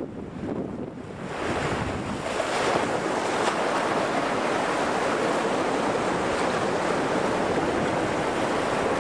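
Rushing, splashing river rapids around a canoe running whitewater, mixed with wind buffeting the microphone. The water noise swells up about a second in and then holds steady.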